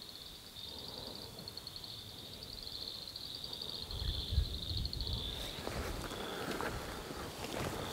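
A chorus of frogs calling: high-pitched trills made of fast, even pulses. The trills fade about five seconds in, giving way to footsteps and rustling through brush with low thumps.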